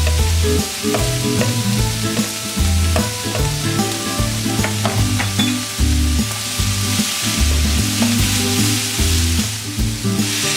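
Chicken gizzards sizzling as they are stir-fried in a pan, with a few sharp clicks of the utensil against the pan. Background music with a repeating bass line plays throughout.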